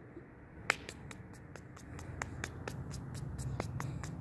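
Finger snaps in a quick, irregular series, about four or five a second, over a low hum that grows louder in the second half.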